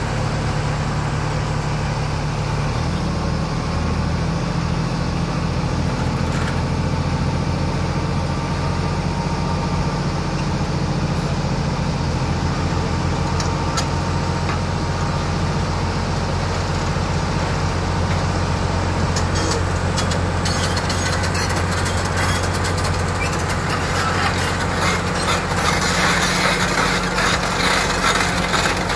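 Cat hydraulic excavator's diesel engine running steadily under load as it lifts and swings a hanging concrete panel. About two-thirds of the way in, a dense clatter joins and grows louder as the machine travels on its steel tracks with the load.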